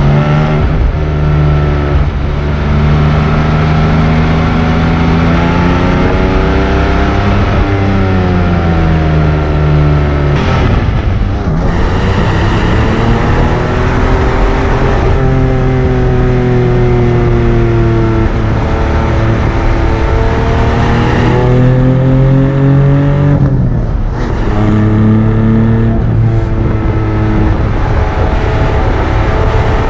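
Porsche 718 Cayman GT4's 4.0-litre naturally aspirated flat-six running hard through its exhaust, its pitch rising and falling again and again as the car accelerates and eases off, with a few brief breaks in the note.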